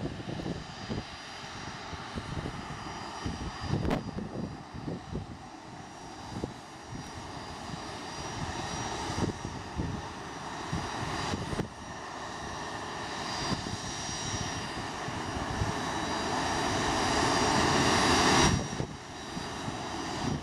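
Bombardier CRJ regional jet's two rear-mounted turbofans whining at taxi power. The whine grows steadily louder and drops off sharply a couple of seconds before the end.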